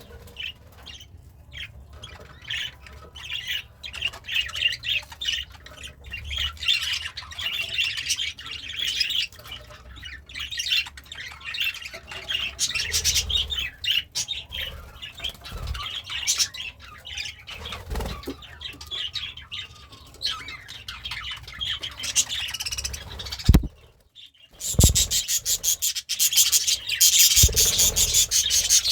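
Pet budgerigar chirping and warbling continuously in quick high twitters. After a brief pause near the end, a rapid dry scratching or crunching joins in.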